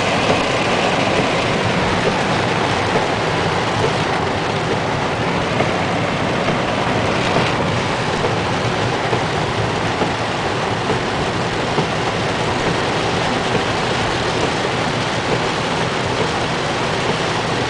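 Heavy downpour of thunderstorm rain: a steady, dense hiss of rain pouring down.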